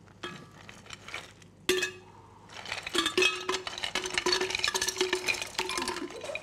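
Ice cubes poured into a glass jug: a few single clinks, then, from about two and a half seconds in, a long run of ice cubes clinking in quick succession, with the glass ringing under them.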